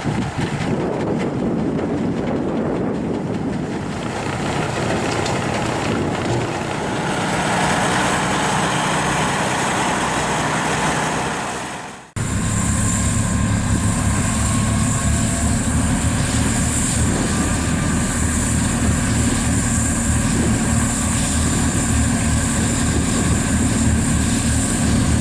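Heavy machinery noise in two parts. First a rushing noise that swells and then fades out about twelve seconds in. Then, straight after, a steady running engine with a constant hum and a high hiss.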